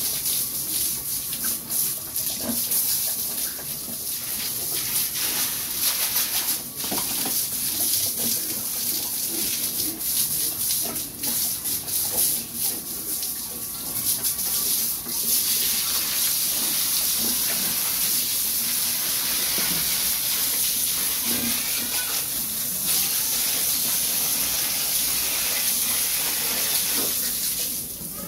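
Water from a garden hose spraying onto pigs in a pen: a continuous hissing spray with splashing against their backs and the floor as they are bathed.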